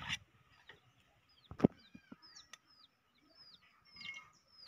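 Small birds chirping, many short high notes that slide downward in quick succession. A single sharp knock about a second and a half in and a few lighter clicks, from pans or utensils being handled.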